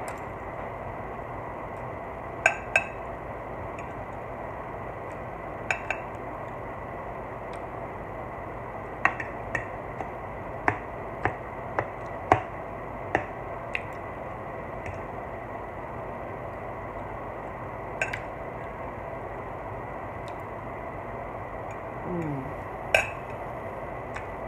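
Close-up eating sounds: scattered sharp clicks and wet smacks from chewing and a fork against a glass dish, over a steady background hiss.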